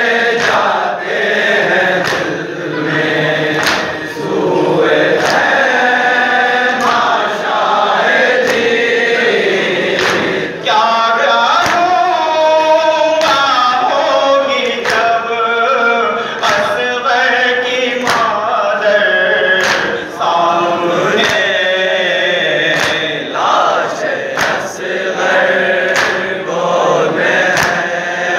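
Male voices chanting a noha, a Shia lament: a lead reciter on a microphone with a group of men and boys singing along. Under the chant runs a steady rhythm of sharp slaps from hands beating on chests (matam).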